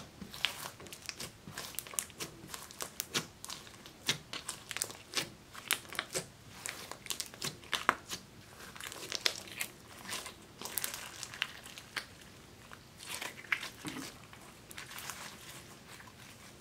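Silver-tinted clear slime being pressed, stretched and folded by hand: a dense, irregular run of sticky crackles and pops.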